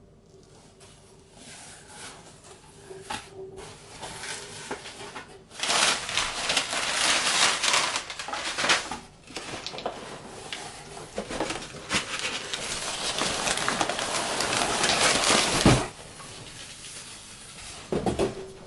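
Packaging being handled and opened, rustling and crinkling with many small clicks. It is quiet at first, loud and continuous from about six seconds in until about sixteen seconds in, then quieter handling.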